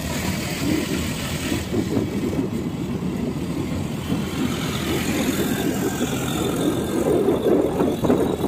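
A vehicle driving along a road, its engine running steadily under continuous road noise.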